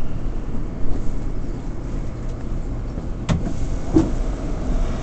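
Inside a moving R179 subway car: steady low rumble of the wheels on the rails, with two sharp clicks about three and four seconds in.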